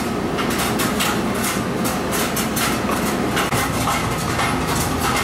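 Busy commercial kitchen din: a steady low rumble under frequent irregular clatter and knocks of cookware and utensils.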